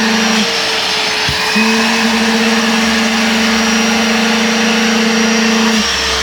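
Spray-extraction sofa-washing vacuum cleaner running steadily. A lower hum in its sound drops out about half a second in, returns a second later, and drops out again near the end, with a short knock just before it returns.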